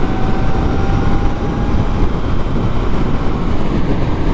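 Wind rushing over the microphone at freeway speed on an electric motorcycle, a dense, steady low rumble with no engine or exhaust note. A faint thin whine rides on top and fades out about halfway through.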